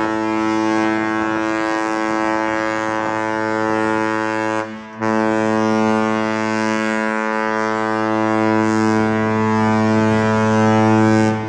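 The cruise ship Westerdam's horn sounding a long, deep blast. It breaks off briefly a little under five seconds in, then sounds again for about six more seconds and stops.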